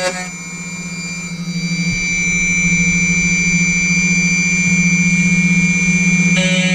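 Portable key cutting machine running, its motor humming with a steady high whine as it cuts a sidewinder key; it gets louder about two seconds in.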